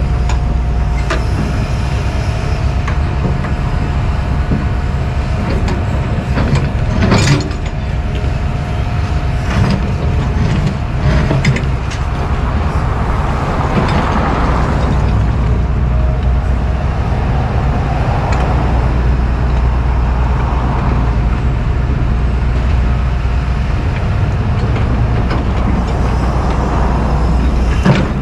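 Diesel engines of John Deere track excavators running under load, with a steady drone and a thin steady whine. Their buckets working broken concrete debris give a few clanks and knocks, the loudest about seven seconds in.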